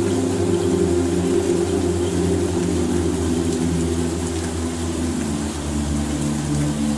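Low, sustained ambient music pad: several held low tones that move to a new chord about five seconds in, over a faint hiss.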